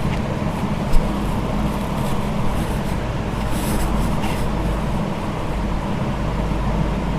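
Steady background rumble and hiss with a low hum, and one short tap about a second in.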